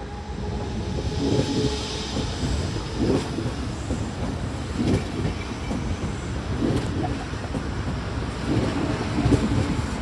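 DB Class 425 electric multiple unit running on the rails, with a rhythmic clickety-clack of wheels over rail joints coming about every two seconds over a steady rumble.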